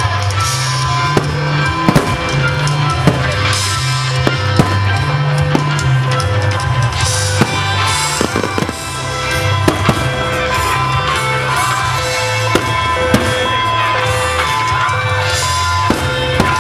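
Loud music with a pulsing bass line plays throughout, with sharp bangs of aerial firework shells bursting overhead at irregular intervals of about one to four seconds.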